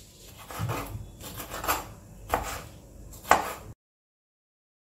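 Kitchen knife slicing yellow pepper on a cutting board: several separate, irregularly spaced knife strikes against the board, the last the sharpest. The sound then cuts off abruptly to dead silence.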